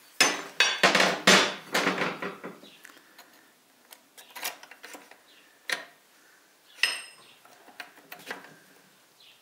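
Steel clicking and clattering inside the open three-speed gearbox of a U-445 tractor as a screwdriver works on the shift rails and forks. A quick run of metal knocks fills the first two seconds or so, then single clicks come about a second apart, one near seven seconds with a brief metallic ring.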